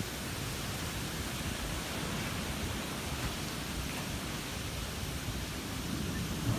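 Wind blowing steadily: an even hiss with an uneven low rumble underneath.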